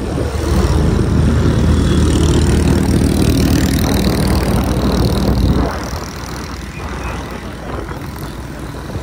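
Small motorcycle engine running steadily while riding along a rough dirt road. The engine sound drops away noticeably a little under six seconds in, as the throttle eases off.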